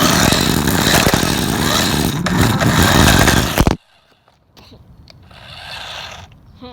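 A toy RC car running with a camera fixed to it: loud rumbling and scraping that cuts off abruptly about four seconds in, followed by a fainter rushing noise.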